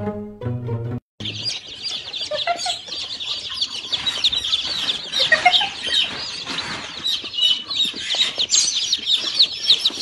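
A crowd of young chicks peeping continuously, many short high chirps overlapping, starting about a second in. Before that, a second of plucked string music.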